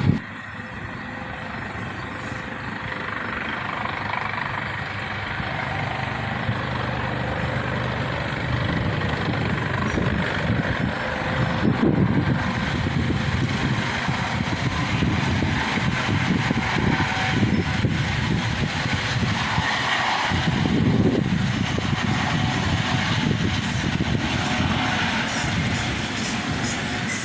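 Helicopter flying overhead: a steady, rumbling engine-and-rotor noise that grows louder over the first several seconds and then holds.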